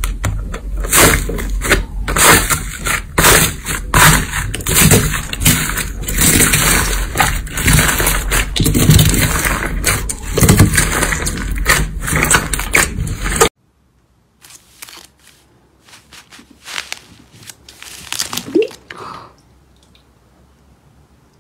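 Thick, crumbly-textured slime pressed and kneaded by hand, giving a dense, irregular run of loud crackles and pops. About two-thirds of the way through it cuts off sharply to fainter, scattered clicks and squishes.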